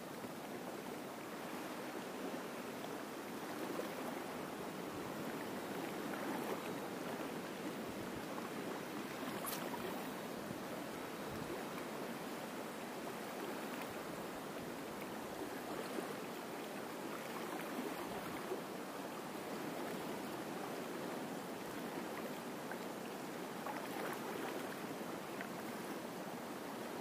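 Small waves lapping at the edge of a sandy estuary shore, a steady, even wash of water, fairly quiet.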